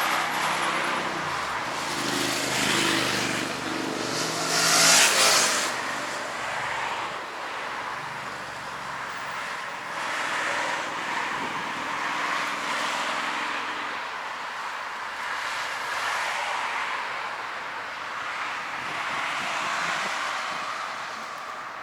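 Road traffic passing close by: cars driving past with engine hum and tyre noise, one vehicle going by loudly about five seconds in.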